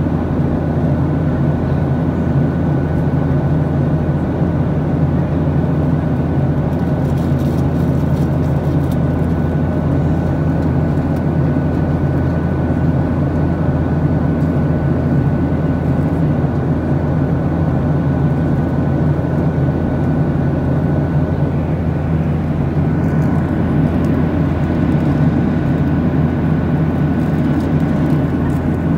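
Steady cabin drone of a jet airliner in cruise, heard inside the cabin beside the wing-mounted turbofan engine: a loud low rumble with a thin steady whine above it.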